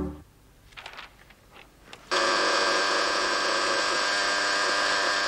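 A manual telephone switchboard's call buzzer sounding: a steady electric buzz that starts abruptly about two seconds in and holds at a constant level, signalling an incoming call for the operator. A few faint clicks come before it.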